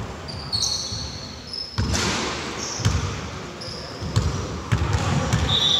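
Basketball bouncing on a hard indoor court during play, a few irregular thuds, mixed with short high squeaks typical of sneakers on the floor.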